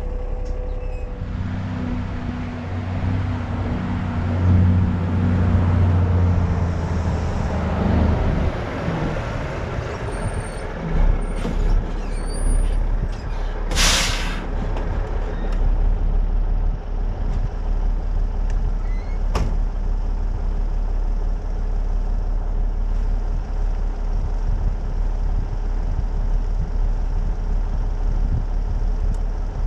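Heavy farm vehicle engine running with a steady low drone for several seconds, fading out near the middle. A short loud burst of air hiss follows, then a steady low rumble.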